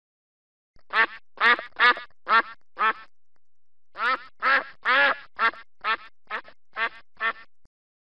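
A duck quacking in a series of loud quacks, about two a second: five quacks, a pause of about a second, then eight more.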